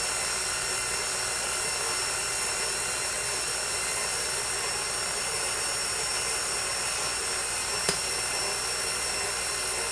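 KitchenAid Ultra Power stand mixer's electric motor running steadily with a whine, its dough hook turning flour, salt and water into dough. A single light click about eight seconds in.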